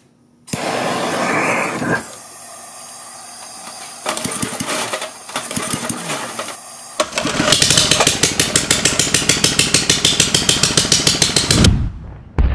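Propane-fed Briggs & Stratton 3 HP single-cylinder four-stroke engine with a clear glass head, starting up. After a steady hiss and a few irregular pops, it fires in an even run of pulses, about seven a second, for roughly four seconds, then stops near the end.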